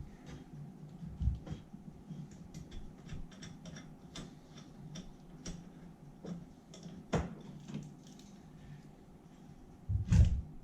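Scattered light clicks and taps of hand tools and metal parts being handled during engine work, with a sharp click about seven seconds in and a heavier thump near the end.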